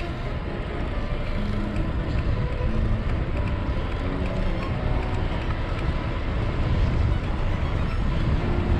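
Wind rushing over the camera's microphone on a bicycle descending a hill, growing a little louder as the speed climbs.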